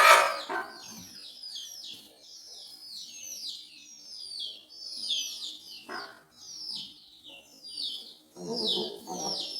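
Birds chirping: a rapid, continuous string of short, high-pitched chirps, each sliding downward in pitch. A brief knock comes about six seconds in, and a lower, fuller sound joins near the end.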